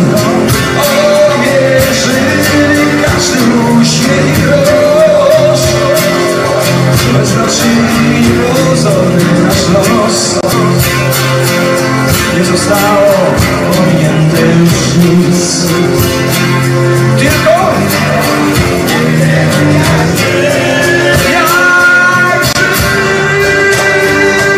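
Live acoustic rock band: a male lead vocalist singing over two strummed acoustic guitars, with a cajón keeping the beat. Near the end a long note is held.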